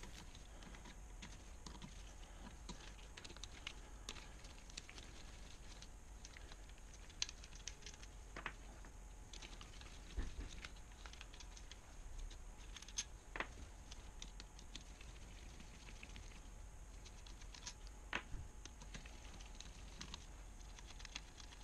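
Faint, scattered clicks and light metallic taps of a hand socket driver working the camshaft cap bolts loose on a Kawasaki KLR 650 cylinder head, with a few sharper clicks now and then.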